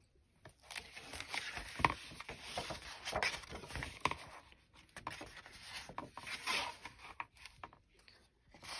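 Thick watercolour-paper pages of an A5 Moleskine sketchbook being opened and turned by hand: rustling, swishing and rubbing in several bursts, with a few taps of the book against the wooden desk.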